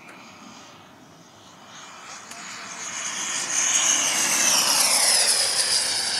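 Electric ducted-fan RC jet, with a JF 110 fan driven by an 840 kV HET motor, making a fast pass. A high-pitched whine grows louder over the first few seconds, then drops in pitch as the jet goes by and climbs away.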